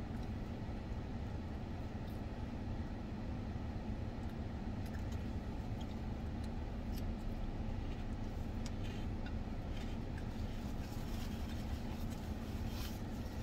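Steady low hum of a car's engine idling, heard inside the cabin, with scattered light clicks and crunches of eating from a plastic salad container.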